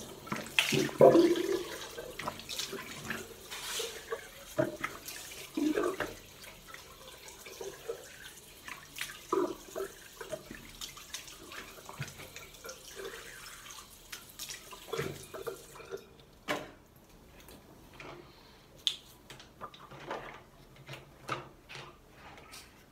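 Tap water running into a sink, with uneven splashes as a soapy face is rinsed by hand. The running water stops about two-thirds of the way through, leaving scattered drips and small splashes.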